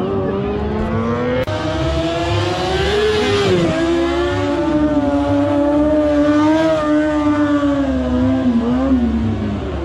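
Stunt motorcycle's engine held at steady high revs as the rider holds a wheelie down the road, its pitch wavering slightly up and down.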